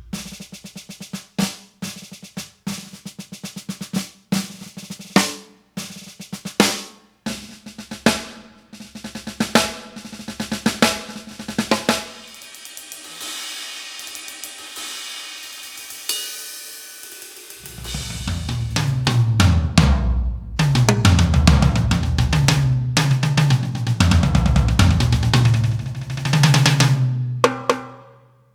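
Roland TD-50X electronic drum kit played through its module with sampled acoustic drum sounds: a groove of dry snare and kick strokes, then a sustained cymbal wash for about five seconds, then a dense run of deep, resonant tom strokes from about eighteen seconds in.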